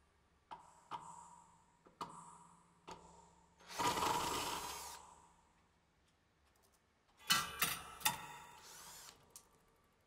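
Upcycled bandsaw blades of a kinetic sound installation clicking and ringing in a few sharp metallic strikes. A noisy burst about a second long comes about four seconds in, and a quick cluster of strikes and another noisy stretch come near the end.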